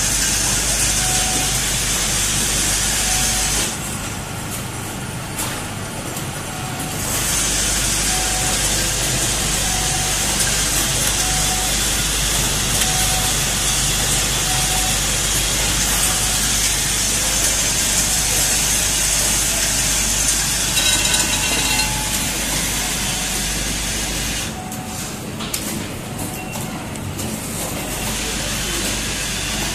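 Automatic transformer soldering machine running: a steady air-like hiss that cuts out twice for about three seconds, with a faint short tone repeating about every second and a half.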